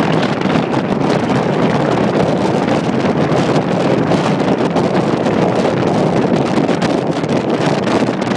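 Steady rush of wind on the microphone of a camera held at the window of a moving car, mixed with road noise.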